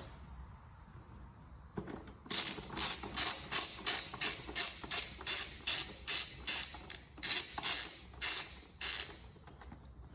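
Ratchet wrench with a 10mm socket being worked back and forth to undo a bolt, a rapid clicking rasp on each stroke, about three strokes a second. It starts about two seconds in and stops shortly before the end.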